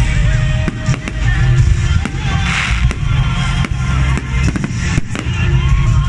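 Fireworks display: repeated bangs and crackles of shells bursting, several a second, over loud music playing along.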